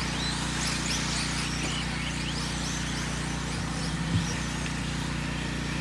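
Electric RC short course trucks racing, their motors whining up and down in pitch as they accelerate and brake, over a steady low hum. One short knock a little past halfway.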